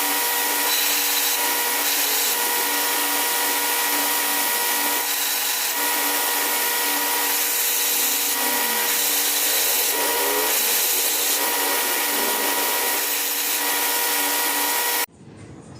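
A power grinder running steadily, with a hissing grind and a constant motor hum; it cuts off abruptly near the end.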